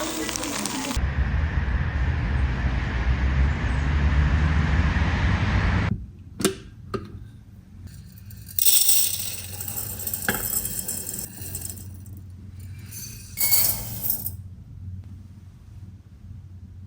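A steady rushing noise for the first several seconds, then light clinks and knocks of kitchenware with two short hissing bursts.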